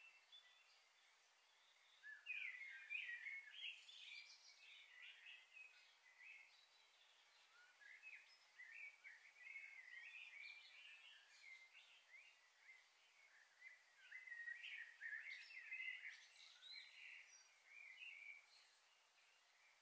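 Faint, busy chirping of small birds in quick runs of short notes, over a steady hiss.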